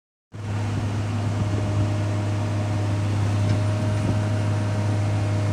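Heavy machinery running with a steady low hum and a fainter steady whine above it.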